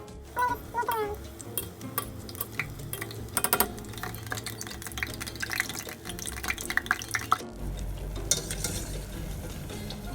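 Dough balls frying in a pot of hot oil, with a metal utensil clinking and scraping against the pot at irregular moments and a light sizzle.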